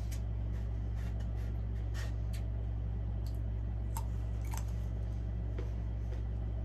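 Steady low hum of room tone, with a few faint, scattered clicks.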